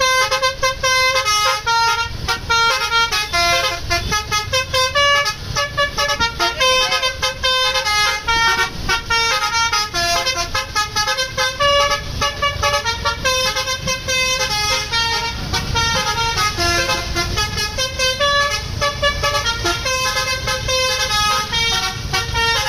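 A tour bus's basuri telolet multi-tone air horn plays a fast tune of stepped notes without a break, over the low rumble of the bus.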